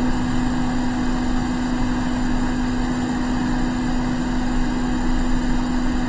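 Steady whir of a small electric fan or blower motor with one constant hum tone.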